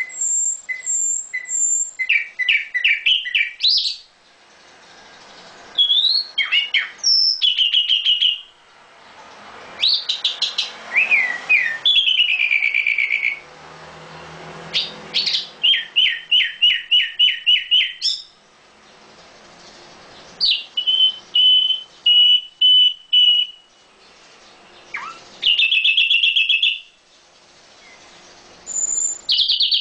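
A songbird singing loud, varied phrases: fast runs of repeated notes, trills and high whistles, with short pauses between the phrases.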